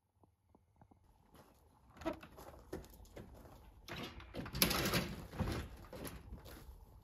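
Large hinged garage door being shoved open with effort: irregular knocks and scraping, loudest about four and a half seconds in.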